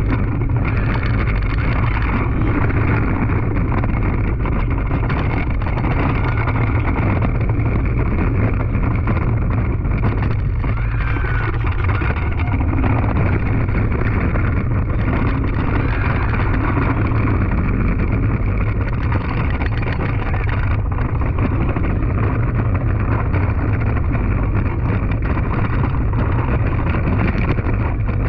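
Bolliger & Mabillard stand-up surf coaster train running on its steel track, heard as a steady loud rumble with heavy wind buffeting on the train-mounted microphone.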